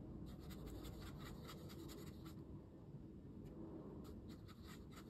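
Faint scratchy strokes of a watercolour brush on rough cotton rag paper as a paint swatch is laid down, pausing for about a second around the middle.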